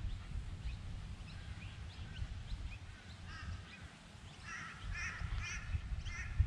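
Wild birds calling in a chattering series of short, wavering calls that grow more frequent from about halfway through, over a low rumble of wind on the microphone.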